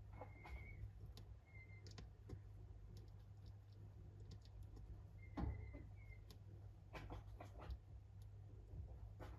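A hatching chick pipping at its eggshell inside an incubator: faint, scattered clicks and taps over a steady low hum, with a few short, high peeps in two pairs near the start and about five seconds in.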